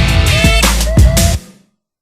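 Electronic music with heavy bass and deep drum hits that drop in pitch, cutting off suddenly to silence about one and a half seconds in.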